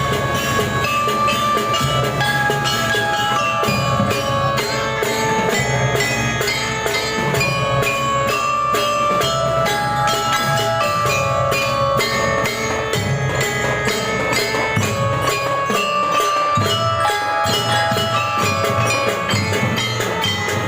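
School drum band playing a tune: a bell-lyre melody over a steady beat of drums.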